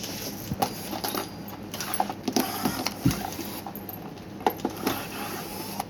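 Irregular light clicks and knocks of an electric fan's casing and parts being handled as it is opened up to get at the motor.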